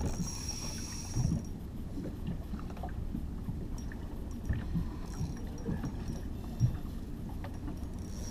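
Steady low rumble of wind and water against a small motorboat's hull, with a few light knocks, the sharpest about a second in and near the end.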